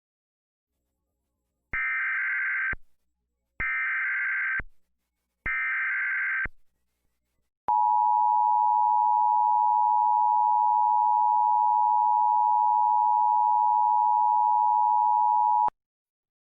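Emergency Alert System SAME header: three short bursts of warbling digital data tones, about a second each, followed by the EAS two-tone attention signal (853 and 960 Hz) held steady for about eight seconds, announcing a tornado warning.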